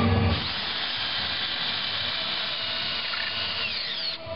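DeWalt hammer drill running steadily as it drives a Tapcon concrete screw through a 2x4 bottom plate into a terrazzo-over-concrete floor, its pitch dropping near the end.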